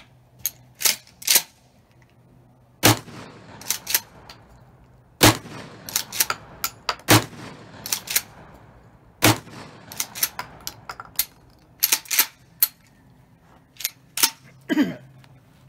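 Four shots from a Remington 870 pump-action shotgun firing steel birdshot, about two seconds apart. The slide is racked back and forward with a pair of sharp clicks before the first shot and after each one, and a couple more times near the end.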